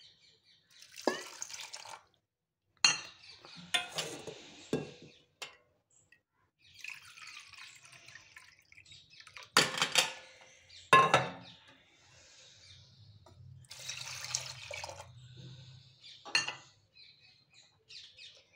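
Water poured from a steel bowl onto rice in a pressure cooker, in several separate splashing pours, with a few clinks of steel on steel.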